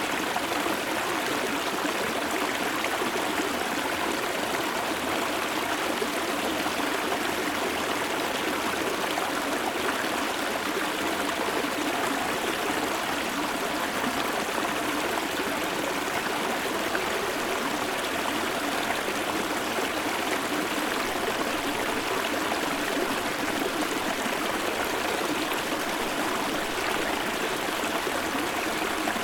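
Stream water flowing and trickling in a low, summer-dry river, heard close up from about half a metre away: a steady, even rush of water.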